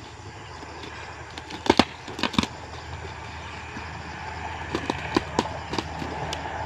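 Plastic wrapping and tape on a large cardboard shipping box being pulled and torn by hand, with a few sharp crackles and snaps in two bunches, about two and five seconds in.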